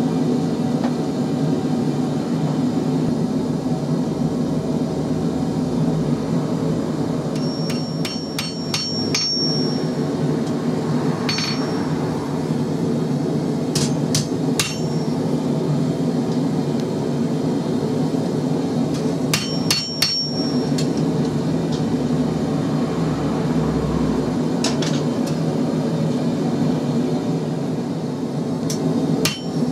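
Hand hammer striking a hot XC75 steel knife blade on an anvil, in short clusters of quick blows spread through, several leaving a high metallic ring. Under it the forge runs with a steady roar.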